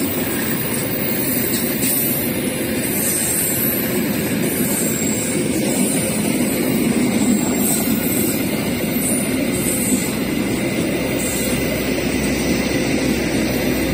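Passenger coaches of the Argo Wilis express train rolling past on the rails close by, a steady rumble of wheels on track.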